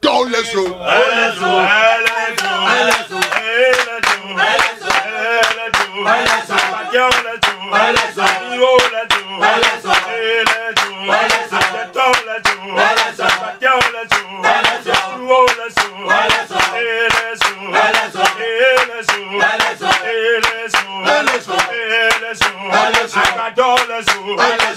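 Several voices praying aloud together, fervent and overlapping, without a break, with frequent sharp clicks or claps throughout.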